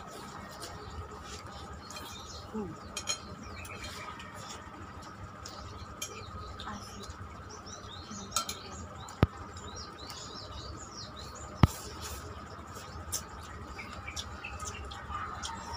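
Someone eating noodles with a metal spoon from a ceramic plate: quiet mouth and spoon noises, with two sharp clinks about nine and eleven and a half seconds in. Small birds chirp in the background.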